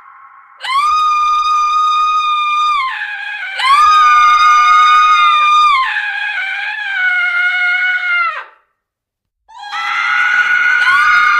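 Women's long, high-pitched held screams, several overlapping, each lasting about two seconds; one trails off with a falling pitch about eight seconds in, and after a brief silence another scream starts.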